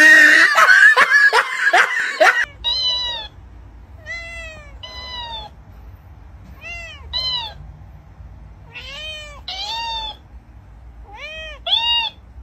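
After about two seconds of loud, harsh noise, a cat meows in short arched calls, mostly in close pairs. The second call of each pair is often a little higher, typical of a talking dancing-cactus toy repeating the cat's meow.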